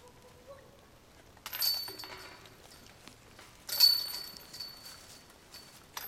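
Disc golf discs striking the hanging chains of a metal basket three times: each a sudden jangle of chains with a ringing metallic tone that fades over about a second. The middle hit, a little past halfway, is the loudest, and the last comes right at the end.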